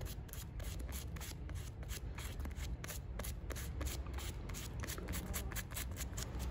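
Small sheet of sandpaper from a puncture repair kit rubbed back and forth over a rubber bicycle inner tube in quick scratchy strokes, several a second. It is roughening the rubber around the puncture so the patch will bond.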